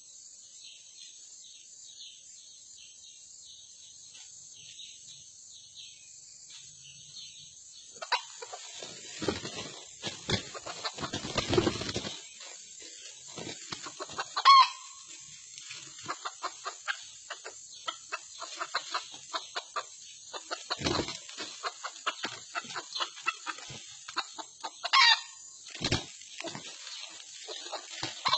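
Red junglefowl roosters fighting in dry leaf litter: after a quiet stretch of insect hiss, a flurry of rustling, scuffling and wing flapping starts about eight seconds in. Two short calls stand out, one mid-way and one near the end.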